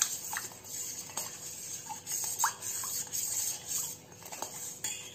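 Steel spoon stirring a liquid drink mixture in a stainless steel bowl, clinking and scraping against the sides in irregular strokes with short ringing pings.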